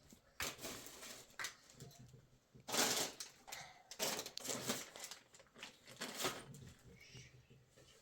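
Irregular clicks, knocks and rustling of objects being handled, with a louder scraping or crunching stretch about three seconds in.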